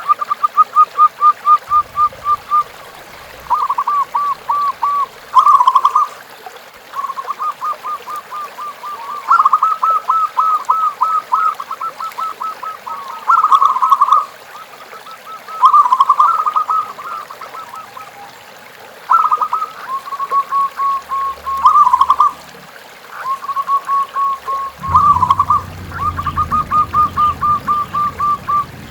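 Zebra doves (perkutut) calling: repeated trains of rapid staccato cooing notes, one series after another and sometimes overlapping. A low rumble joins near the end.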